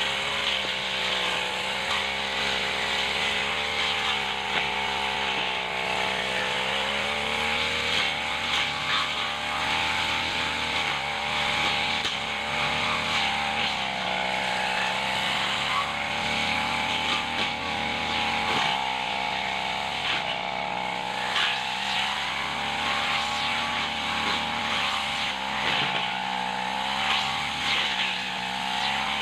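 Backpack brush cutter engine running at working speed, its pitch wavering up and down as the cutting head swings through grass and weeds. Scattered sharp ticks come from the head striking the growth.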